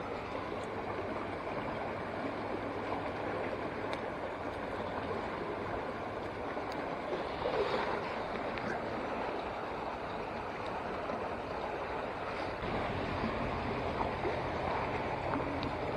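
Steady rushing of floodwater pouring through a culvert into a swollen stream. A low hum joins about three-quarters of the way through.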